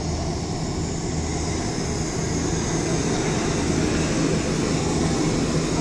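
Steady low engine rumble under even outdoor street noise, with no change through the stretch.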